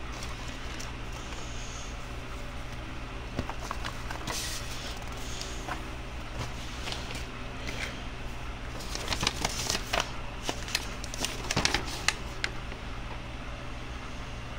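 Paper and sticker sheets being handled and sorted, a crackly rustling with small clicks that comes in clusters about four seconds in and again from about nine to twelve seconds in, over a steady low hum.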